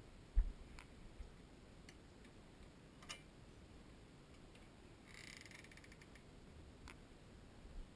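Wooden glass-panelled door being opened: a soft thump near the start, a few light clicks of the latch and frame, and a short creak of the hinges about five seconds in.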